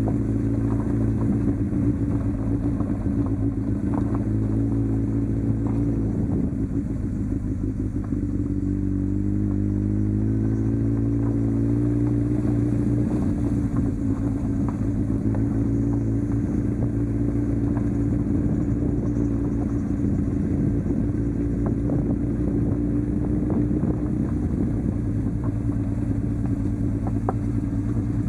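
Motorcycle engine running at low, even revs as the bike rides down a gravel track, the pitch wavering a little in the first few seconds and then holding steady. Scattered clicks and rattles come through from the stony surface.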